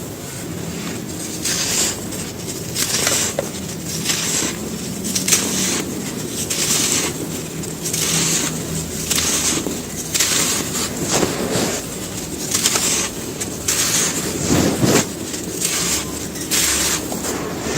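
Dry sand-cement slabs and cones crunching and crumbling, with a dozen or so crisp crunches at about one a second over a softer gritty rustle.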